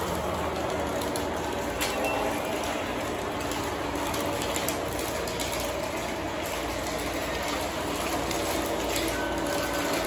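Lionel O gauge model trains running on their track: a steady mechanical whir and rattle of motors and wheels, with a few sharp clicks.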